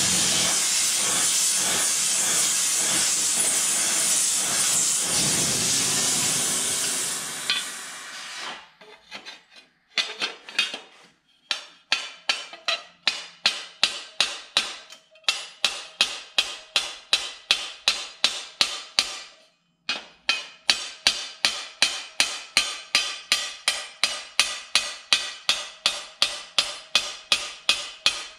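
A loud steady hiss that fades out after about seven seconds, then a hammer striking a sheet-steel armour plate on a steel stake, forming its roped rolled edge: sharp ringing blows at about three a second, with a brief pause partway through.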